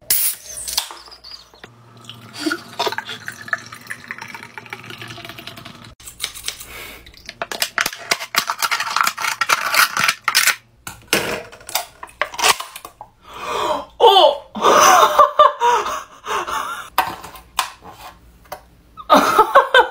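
A Guinness Draught can cracked open with a sudden pop and hiss. Then scissors crunch and crinkle through the thin aluminium can in a run of sharp clicks and crackles.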